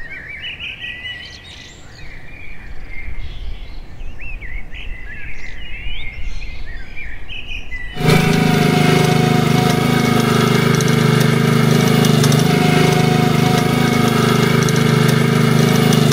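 Birds chirping for about eight seconds. Then the small petrol engine of a walk-behind spiked lawn aerator cuts in abruptly and runs steadily and loudly.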